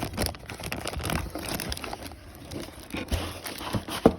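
Plastic packaging crinkling and rustling as a synthesizer is worked out of its box, with scattered light clicks and a couple of knocks near the end.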